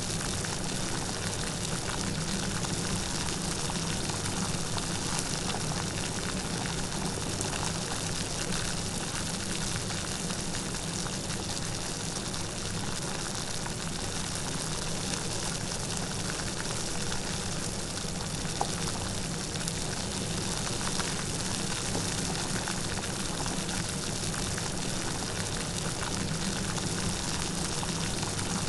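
Light rain falling steadily, an even hiss of many small drops with no thunder.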